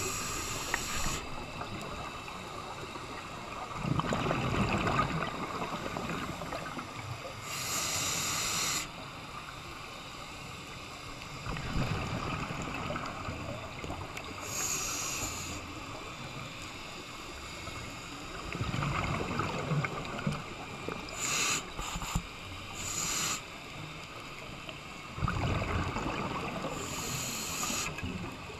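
A scuba diver breathing through a regulator underwater: a short hissing inhale about every seven seconds, each followed a few seconds later by a burst of exhaled bubbles.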